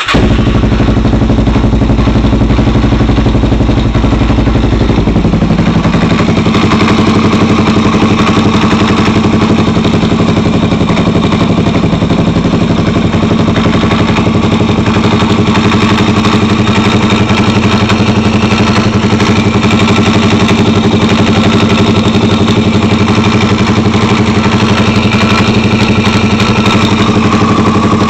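Suzuki DR-Z400's single-cylinder four-stroke engine idling, with the intermittent knock/rattle the owner is chasing. He suspects a loose or failing decompressor, the cam chain or the crank balancer. The idle note shifts about five seconds in, then holds steady.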